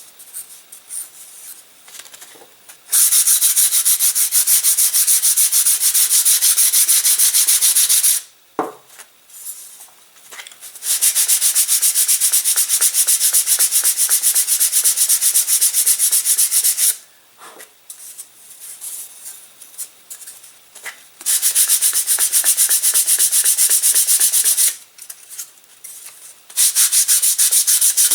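Sandpaper sanding a balsa-wood glider wing in quick back-and-forth strokes. There are four runs of several seconds each, with short pauses between them that hold a few light knocks.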